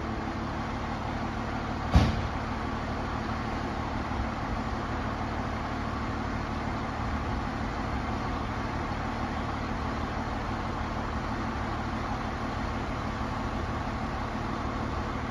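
Fire engine's diesel running steadily at idle, with one sharp thump about two seconds in.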